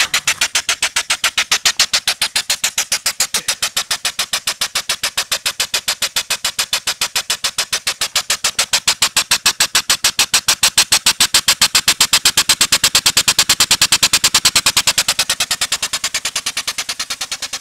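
Small two-stroke gasoline engine converted to run on steam, fed through the spark plug hole with no valves, running with a rapid, even chuffing of steam puffs, several a second, over a hiss of escaping steam. It grows louder in the middle and eases a little near the end.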